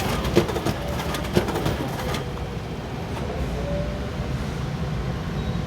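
A print-shop machine running: rapid mechanical clatter with two sharper knocks in the first two seconds, settling into a steady hum.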